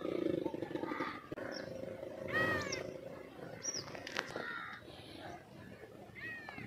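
Crows cawing outdoors: a harsh call about two and a half seconds in and another near the end, with a shorter high call between. A low, drawn-out animal call sounds in the first second.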